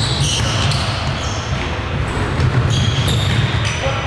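Basketball game play in a gym: the ball bouncing on the court and several short, high sneaker squeaks, over a steady low rumble of the hall.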